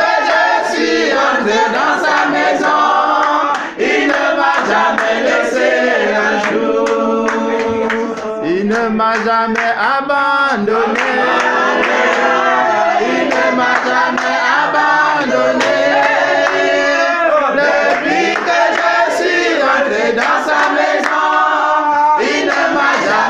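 A small group of men and women singing a Christian praise song together, with hand clapping.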